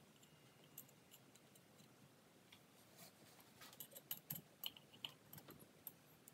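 Faint small clicks and taps of a screwdriver and screws being handled against the metal of a ceiling fan light kit, clustering in the second half.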